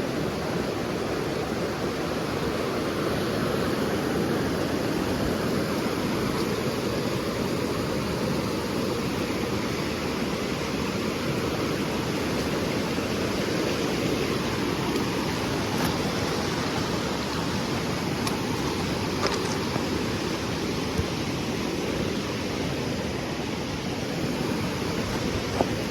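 Steady rushing of water from waves or current along a beach, with a few light taps scattered through it.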